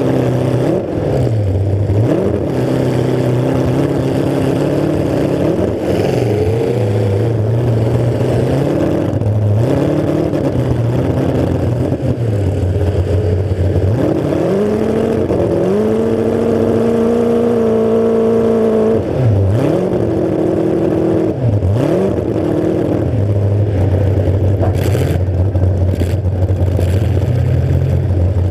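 Demolition derby car's engine, with open exhaust stacks straight up through the hood, revving up and down repeatedly. It is held at high revs for a few seconds past the middle, then settles back to a lower, steady run near the end.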